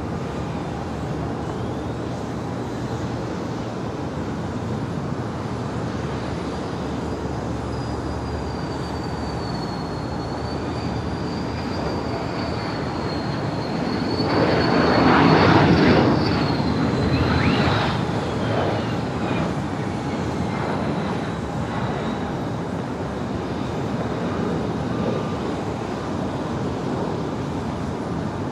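US Air Force Thunderbirds F-16 fighter jet landing: a high jet-engine whine and rumble build as it comes in and are loudest as it touches down about fifteen seconds in. The whine then falls in pitch as the jet rolls out on the runway.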